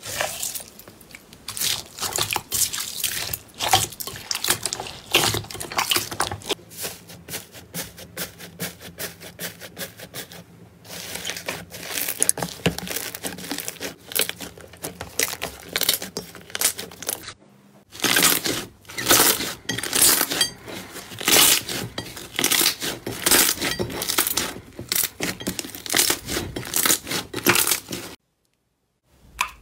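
Hands squeezing and kneading slime and gel water beads in bowls: a dense run of wet crackles, pops and squelches that changes character at several cuts between clips, breaking off briefly near the end.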